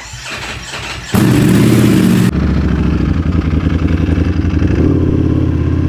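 Ducati Panigale V4 S's V4 engine: a loud rev about a second in, lasting about a second, then it settles into a steady idle.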